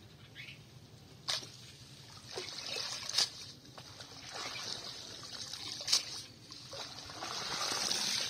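Water streaming and dripping off a wet cast net as it is hauled out of the pond in several pulls, each pull a rush of trickling and splashing that swells and fades, the longest near the end. Three short sharp knocks stand out among them.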